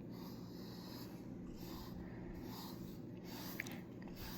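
Soft, scratchy strokes of a grooming brush through a long-haired cat's fur, repeating about every half second to a second, with a couple of small clicks near the end.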